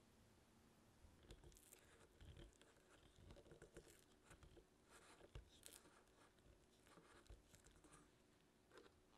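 Silicone spatula pressing and scraping softened butter against a stainless steel bowl, heard as faint, irregular soft scrapes and taps.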